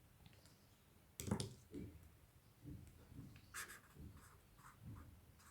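Pen writing on paper: short, quiet strokes starting about a second in, with brief pauses between them.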